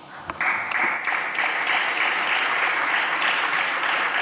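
A group of parliamentary deputies applauding, starting about half a second in and then keeping up a steady clapping.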